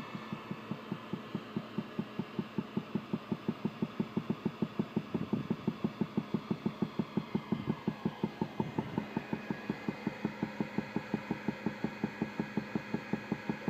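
Hydraulic pipe-bursting machine running as it pulls its cable, with a rapid, regular knocking of about five beats a second.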